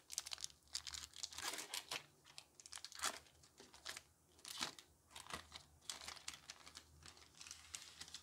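Foil wrapper of a Pokémon trading-card booster pack crinkling and tearing as it is ripped open by hand and the cards are pulled out, a faint run of irregular sharp crackles.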